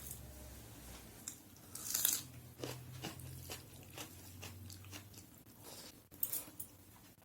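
A person chewing food close to the microphone, with many small mouth clicks and a loud crunchy bite about two seconds in and another about six seconds in.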